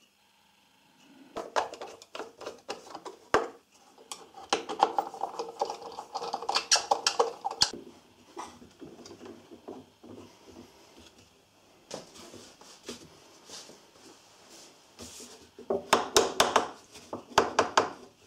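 Workbench handling clatter: scattered knocks, taps and scrapes of wood and metal as a wooden shooting board is positioned and fixed to the bench with a bar clamp. The clatter is busy in the first half, sparse in the middle, and ends in a quick run of knocks near the end.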